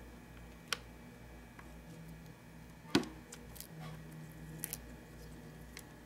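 Quiet handling of steel pliers and a small plastic wire connector: a few light clicks, with one sharper click about three seconds in.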